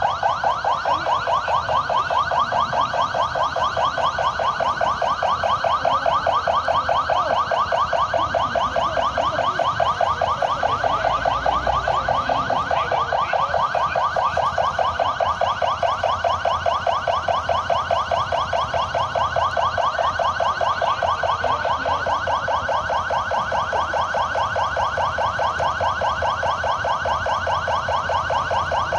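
An electronic alarm sounding a fast, steady warble, a rapidly repeating sweep in pitch, that cuts off suddenly at the very end.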